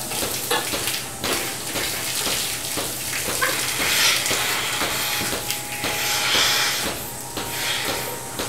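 Two people struggling on dry, flattened corn stalks: the stalks crackle and rustle under them, with loud breathy gasps swelling about four and six and a half seconds in.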